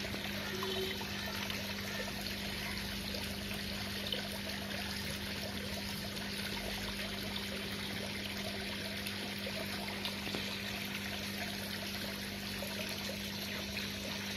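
Water running and trickling steadily into a koi pond, with a low steady hum underneath.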